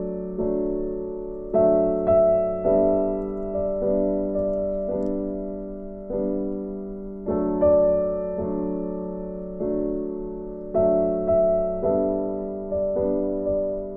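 Background piano music: a slow piece of single notes and chords, each struck and left to fade before the next.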